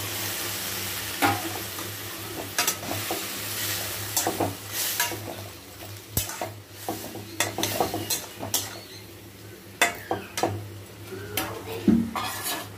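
Flat steel spatula stirring and scraping vegetables around a metal kadai, with irregular clinks and scrapes of metal on metal over the sizzle of frying.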